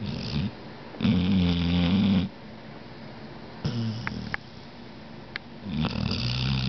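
Loud snoring in a run of separate rattling snores, about four of them, the longest and loudest about a second in.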